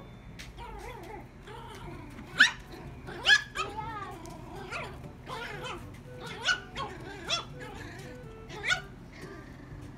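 Small puppy yapping: a string of short, high-pitched barks, about one a second, starting about two seconds in.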